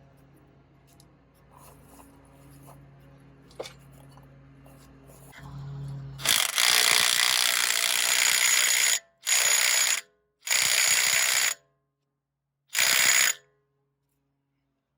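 Impact wrench running in four loud bursts, the first about three seconds long and the rest short, driving home the bolts of a new front wheel hub assembly. Faint background music comes before the first burst.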